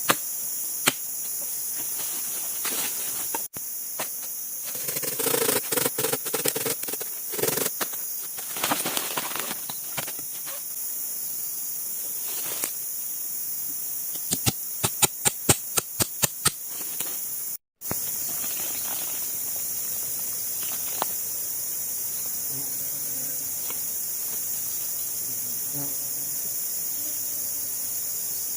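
Steady high-pitched chorus of tropical forest insects. It is broken by rustling and handling noise, then by a quick run of about a dozen sharp knocks a little past halfway.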